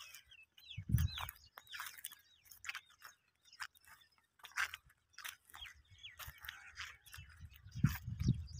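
Footsteps crunching over a dry, freshly tilled stubble field, with small birds chirping repeatedly and a few low bumps near the end.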